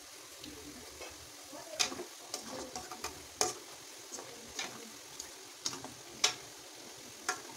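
Cabbage pakodas deep-frying in hot oil in a metal kadai: a steady sizzle, with a ladle stirring them. Sharp clicks come through it now and then, the loudest about six seconds in.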